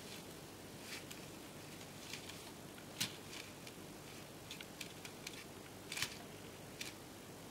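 Faint handling noise from a plush hand puppet being worked: soft fabric rustles with scattered small clicks, the sharpest about 3 and 6 seconds in.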